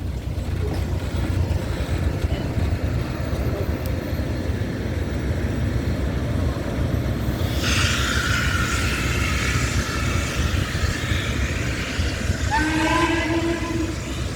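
Western Maryland 1309, a 2-6-6-2 Mallet steam locomotive, passing with a hissing rush of noise from about halfway over a steady low rumble. Near the end its steam whistle sounds one short chord that slides up in pitch as it starts.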